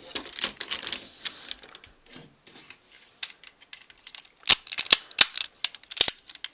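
Hard plastic parts of a Deluxe Blizzard Force Megazord toy clicking and knocking as they are handled and snapped into place during transformation, with a quick run of sharper, louder clicks in the second half.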